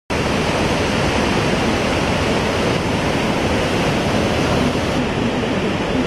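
The Hukou Waterfall on the Yellow River: a large volume of water pouring over a rock ledge, making a loud, steady rushing noise.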